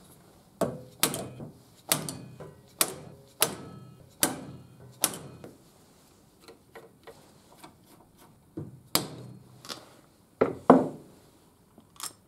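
Hammer blows on a hand impact driver to break loose tight, soft carburettor screws: a run of sharp metallic strikes under a second apart, then fainter taps and a few more strikes near the end.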